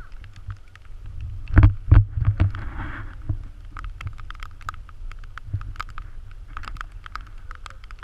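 Wind buffeting a handheld camera's microphone as a steady low rumble, with frequent small clicks and knocks of handling. Two heavier thumps come about one and a half and two seconds in.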